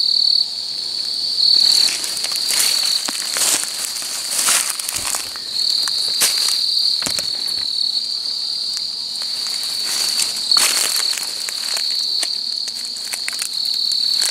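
A chorus of night insects trills steadily and loudly at a high pitch. Irregular rustling and crackling of leaf litter and undergrowth come through it as someone moves through the brush and handles things.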